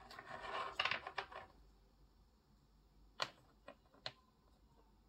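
Painted miniatures on round bases being slid and set down on a cutting mat: a brief scrape and rustle with a couple of clicks, then three light separate taps a few seconds in.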